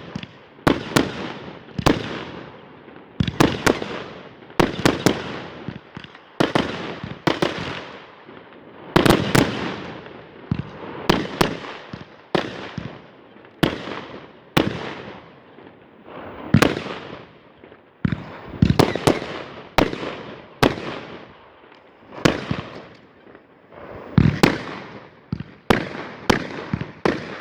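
Fireworks going off in a steady series of sharp bangs, about one a second, some in quick doubles and triples, each trailing off in an echo.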